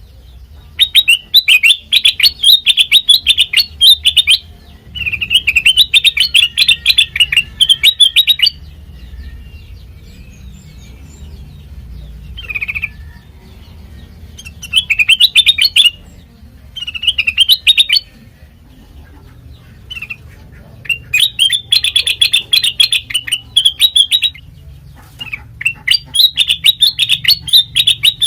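Kutilang mas songbird singing loud bouts of rapid, chattering notes, each bout a few seconds long with short pauses between, about seven bouts in all.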